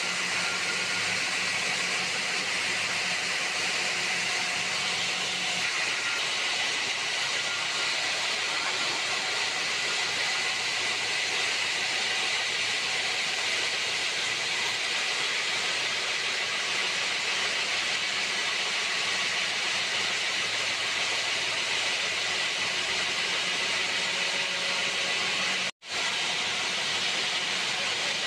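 Steady, loud hissing noise of stone-yard machinery, with a faint low hum in the first few seconds; it cuts out for an instant near the end.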